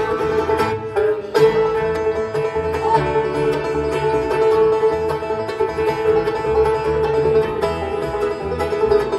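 Live bluegrass band playing an instrumental passage with the banjo out front, with a brief break in the music just over a second in.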